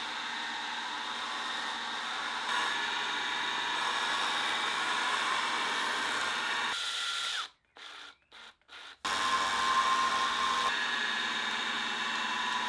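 Friedrich Deckel milling machine running, its end mill cutting a circular pocket into wood: a steady machine whine with a few held tones. The sound drops out briefly a little past the middle, then resumes.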